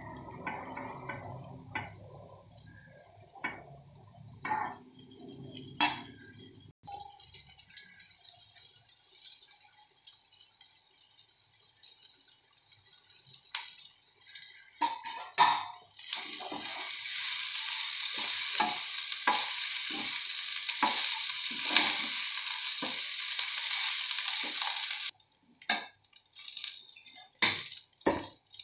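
A steel spoon and spatula knock and scrape in a stainless steel kadai as cooked rice is tipped in and stirred into tomato masala. There are a few scattered knocks at first, then a steady run of strokes a little more than once a second. Partway through the stirring, a loud steady sizzling hiss starts suddenly and cuts off about nine seconds later.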